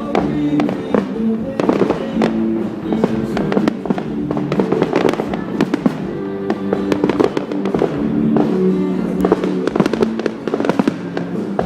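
Fireworks going off in quick, irregular succession, many sharp bangs and crackles, over music with sustained held notes.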